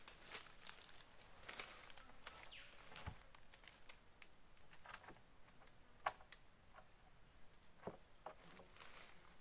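Faint, scattered crackles and ticks of dry twigs and leaf litter, with a sharper tick about six seconds in, over a faint steady high insect drone.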